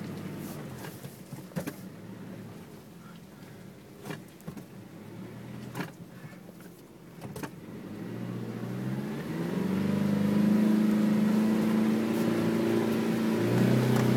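Pickup truck engine heard from inside the cab, running quietly at low speed over a rough forest track with a few knocks and rattles, then revving up about eight seconds in and pulling loud and steady, dropping in pitch near the end.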